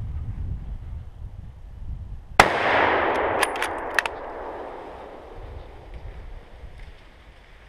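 A single rifle shot from a scoped hunting rifle about two and a half seconds in, its report rolling away through the forest and fading over a couple of seconds, followed by a few quick clicks.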